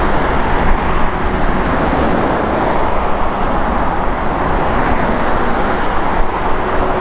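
Airbus A380-841's four Rolls-Royce Trent 970 turbofans at takeoff thrust as the jet rotates and lifts off: a loud, steady jet roar with a faint steady tone running through it.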